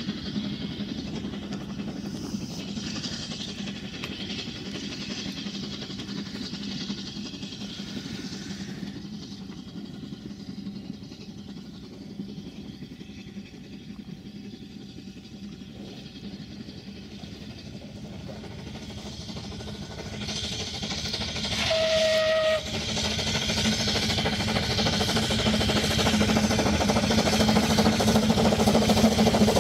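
Narrow-gauge steam locomotive working a train, one short blast of its steam whistle a little over two-thirds of the way through. The train grows steadily louder toward the end as it approaches.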